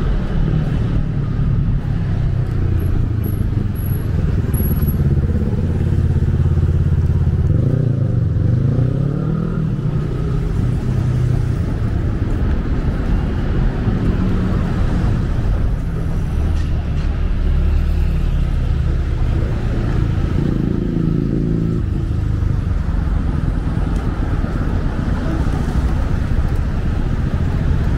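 Street traffic: cars and buses running along the road with a steady low engine drone. About seven to ten seconds in, an engine's pitch rises and falls as a vehicle pulls away or slows.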